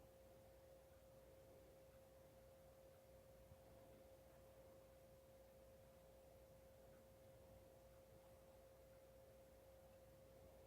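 Near silence: faint room tone with a thin, steady hum at one pitch.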